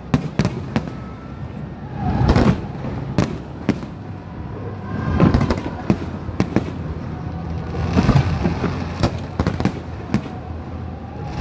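Aerial fireworks bursting: a steady run of sharp bangs and crackles, with heavier clusters of booms about two, five and eight seconds in.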